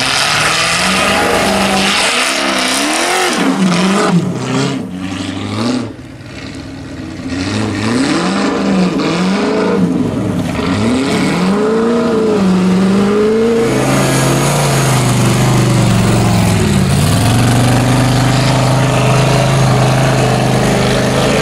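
Off-road racing buggies' engines revving hard up and down under load as they push through deep snow. About two-thirds of the way through, one engine settles into a steady high-revving note with a brief dip.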